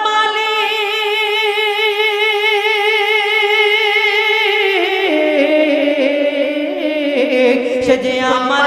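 A single male voice singing a Bengali Islamic gojol into a microphone, holding one long note with a wavering vibrato for about four and a half seconds, then dropping in pitch into an ornamented, melismatic phrase.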